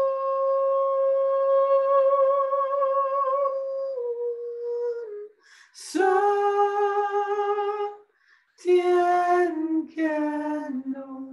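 A woman's voice singing long wordless held notes, unaccompanied: one long high note, then after short breaks for breath, lower notes stepping down in pitch.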